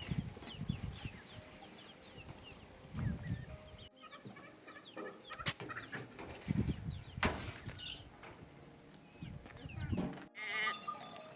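Farmyard animal sounds: many short, high chirps with a few low thuds, broken by abrupt cuts about four seconds in and near the end.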